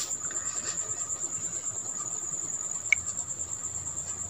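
A steady high-pitched trill or whine, cricket-like, with a faint lower hum beneath it and a single sharp click about three seconds in.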